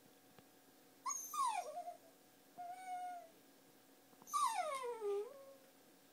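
Miniature dachshund puppy whining three times: two high whimpers that slide down in pitch, the last one the longest, with a short, level whine between them. She is begging to be lifted up rather than jump.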